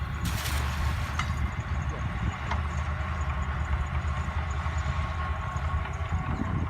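Boat engine running steadily: a low rumble with a thin steady whine over it, and a short burst of hiss about half a second in.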